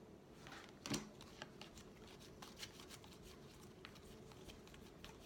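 Faint light clicks and rustle of baseball trading cards being handled and flipped through one by one, with one sharper click about a second in.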